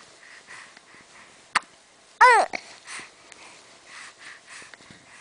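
A baby with the hiccups: a sharp hiccup click about a second and a half in, then a short high squeal that rises and falls in pitch, with soft quick breaths between.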